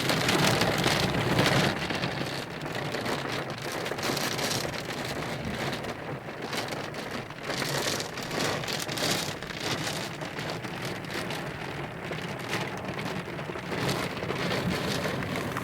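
Heavy monsoon rain pouring down, driven by strong wind, swelling and easing in waves. It is loudest in the first couple of seconds.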